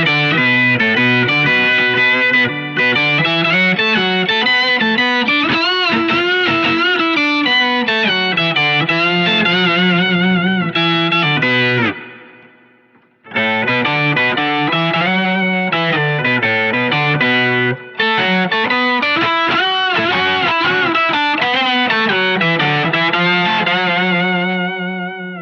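Electric guitar played through an Electro-Harmonix Soul POG octave-and-overdrive pedal: overdriven, sustained notes with wavering, vibrato-like pitch. About halfway through the playing rings out to near silence, then starts again.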